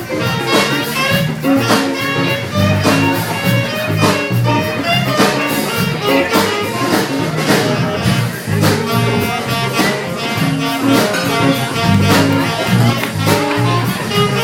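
Live jazz band playing a tune with a steady beat: drums, bass and guitar under a melody line.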